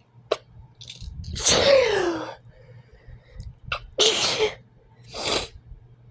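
A person in an allergic sneezing fit: one loud sneeze with a falling voiced cry about a second and a half in, then two shorter sneezes near the end.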